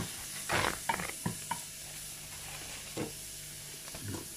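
Food sizzling in hot oil in a frying pan, stirred with a utensil that scrapes and knocks against the pan a few times, most often in the first second and a half.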